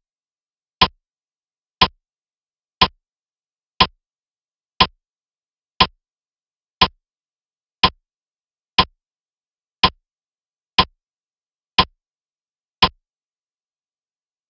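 Clock-tick sound effect counting off the answer time for a quiz question: thirteen short, even ticks, one a second, that stop about a second and a half before the end.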